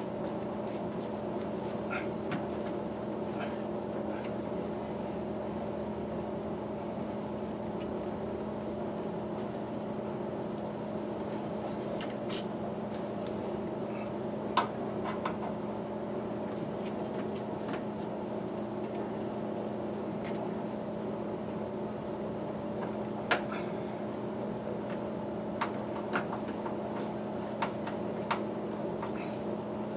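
A steady droning hum with scattered light clicks and taps, two of them sharper than the rest.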